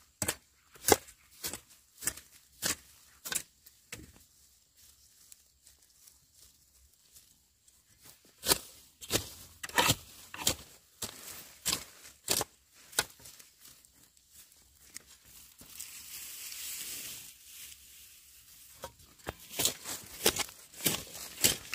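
Repeated sharp chopping strikes, steady at under two a second at first, then in irregular runs with pauses between. A few seconds of rustling, tearing noise comes past the middle.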